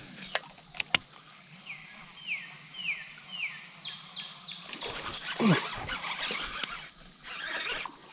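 A few sharp clicks about a second in, then a bird whistling a run of four falling notes, followed by water splashing and churning at the surface from a topwater lure being worked and a fish striking it.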